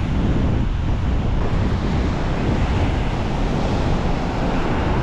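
Steady wind buffeting the microphone over the continuous rush of surf breaking on the beach.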